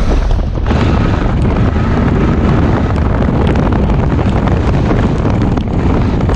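Wind buffeting the microphone over the low rumble of a moving vehicle, a loud, steady roar full of crackle.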